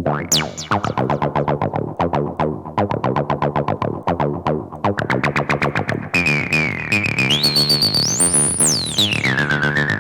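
Distorted acid bassline in the style of a Roland TB-303, a rapid run of short notes about seven a second, played through the TB-303 Distortion Pro plugin with its crossover mix: the bass left clean and only the upper range distorted. From about six seconds in a resonant whistling tone rides on top, sweeps up high around eight seconds and falls back down.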